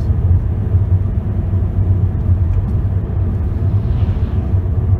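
Steady low drone of a car driving at highway speed, tyre and engine noise heard inside the cabin.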